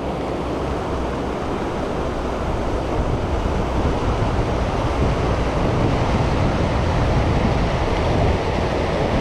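Steady rush of fast, off-coloured river water running over rocks and through riffles, with some wind buffeting the microphone.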